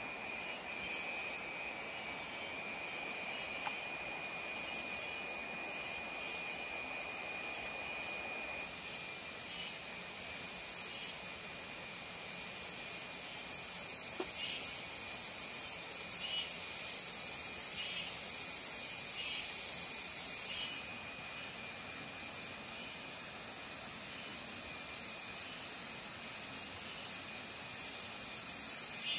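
Insects calling: a steady high-pitched buzz over an even hiss, with a run of short, regular high chirps about once a second midway through.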